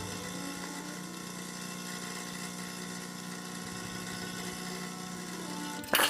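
Salvatore E61 espresso machine's pump humming steadily while pulling a double shot. It stops about six seconds in with a brief loud burst of noise.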